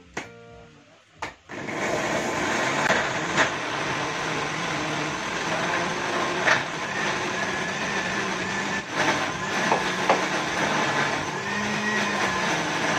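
Electric kitchen blender grinding chillies and spices into a paste. A few knocks as the jar is set on its base, then the motor starts suddenly about a second and a half in and runs steadily and loudly.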